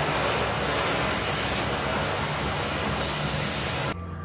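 Cutting torch blowing through a steel stair post: a steady, loud hiss with a low hum underneath, cutting off abruptly near the end.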